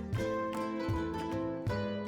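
Background music: plucked-string instrumental with a steady beat.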